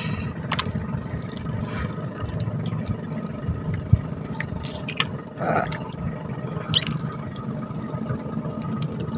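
Water sloshing and dripping around a small wooden fishing boat, with a few light knocks.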